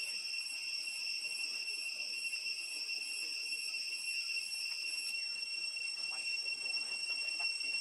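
A steady, high-pitched insect drone holding one unbroken pitch with thinner, higher tones above it, over a faint hiss. A few faint short chirps come in near the end.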